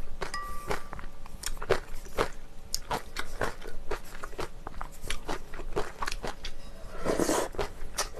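Close-miked wet chewing of spicy bibim noodles: a run of sharp, irregular clicks and smacks. About seven seconds in comes a longer hissing slurp as a mouthful of noodles is sucked in.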